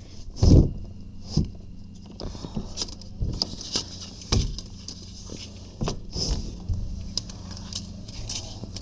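Irregular light taps and knocks, the loudest about half a second in, over a low steady hum.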